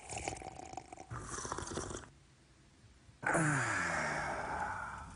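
A man slurping hot tea from a mug. About three seconds in comes a long, drawn-out vocal sigh that falls in pitch and fades.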